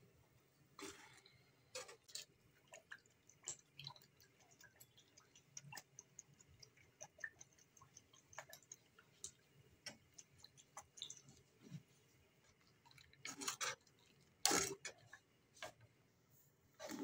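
Soup simmering in a steel wok, with many small ticking pops, and a steel ladle stirring and clinking against the wok. It grows louder with a few scraping clatters about thirteen to fifteen seconds in.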